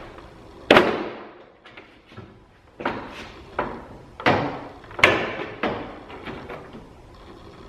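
Plastic truck grille being pushed and knocked to seat it on the front end: a series of about seven sharp knocks and thumps, the loudest just under a second in, as a side that is not lining up is worked into place.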